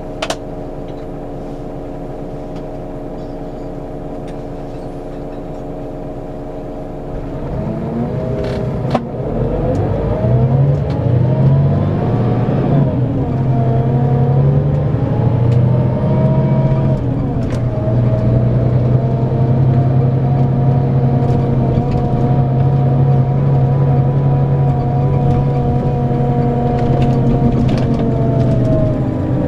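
Scania K410EB6 coach's 13-litre six-cylinder diesel idling steadily, then pulling away about seven seconds in. The engine note rises and dips twice with gear changes, then settles into steady running under load.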